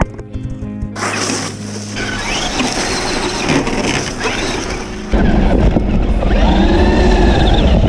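Radio-controlled car driving, its motor whine rising and falling in pitch. About five seconds in it gets suddenly louder, with a low rumble.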